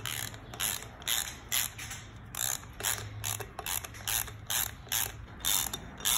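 Hand ratchet clicking in short repeated bursts, about two a second, as flywheel bolts are run in by hand before being torqued.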